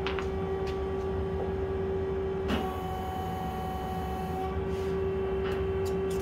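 Steady hum of running machine-shop machinery with a constant tone, joined by a second, higher tone for about two seconds midway. Over it come a few light metal clicks as a steel bar is worked into the centre of a lathe's three-jaw chuck.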